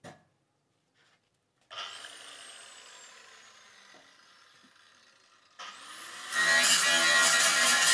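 Electric angle grinder switched on briefly, then left to spin down with a slowly falling whine. It is switched on again, its whine rising, and about six seconds in the disc bites into the sheet metal with a loud, harsh grinding that carries on.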